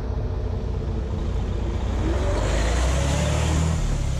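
Heavy diesel semi-truck running with a low engine rumble, and a rushing noise that swells about two seconds in and peaks around three seconds, as if the truck is rolling past or over.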